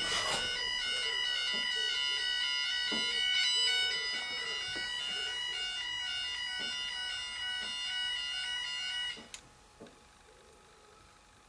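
Railway level crossing warning alarm sounding a steady high-pitched tone as the barriers come down, heard from inside a waiting car; it cuts off suddenly about nine seconds in, once the barriers are fully lowered.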